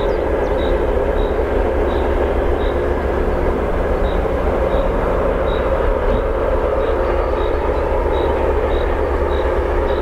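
Two-section 2M62U diesel locomotive's two-stroke V12 diesel engines working under power as it hauls a freight train, a steady deep drone with no change in pitch.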